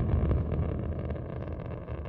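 Deep rumble of a rocket engine firing, steadily fading away.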